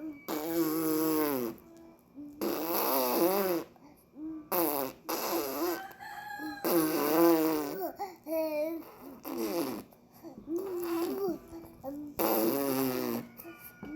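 Baby vocalizing over and over: a string of drawn-out voice sounds with a wavering, wobbling pitch, each up to about a second long with short breaths between, the new noise the baby has found.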